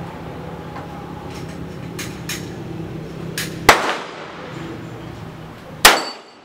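Two handgun shots about two seconds apart, each a sharp crack with a short ringing tail, the first a little over halfway in and the second near the end.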